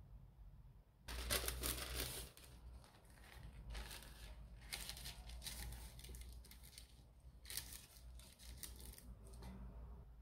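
Sheet of baking paper crinkling and rustling as hands fold and press it into a loaf pan, in irregular bursts, the loudest about a second in.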